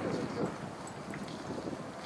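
Wind buffeting the microphone, with a couple of faint pops from distant fireworks.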